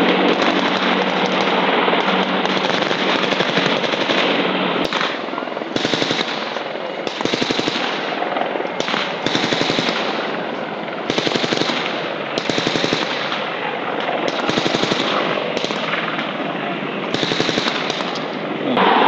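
Automatic gunfire from machine guns: rapid continuous fire for the first few seconds, then short bursts of about a second or less separated by brief pauses, over steady background noise.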